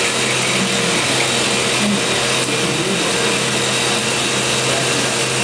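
CNC machine running steadily while it machines a laser collimator body: a constant whirring machine noise with a steady low hum and faint steady tones, no pauses or changes.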